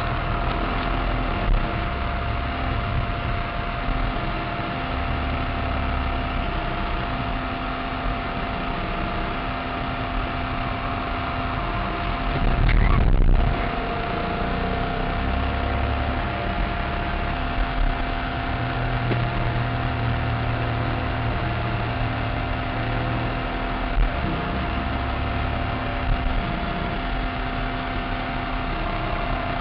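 Air-conditioning blower running inside the cabin of a Maserati Cambiocorsa, a steady whine over the car's V8 and road noise, with the engine's low rumble changing underneath as the car laps. There is a brief louder surge about 13 seconds in.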